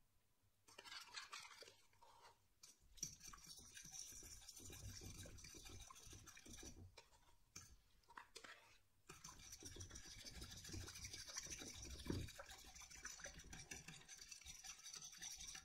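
Faint swishing and scraping of a fork stirring liquid sourdough starter into water in a stainless steel bowl, with the fork also scraping starter off a plastic cup. It starts about three seconds in, with a short break about nine seconds in.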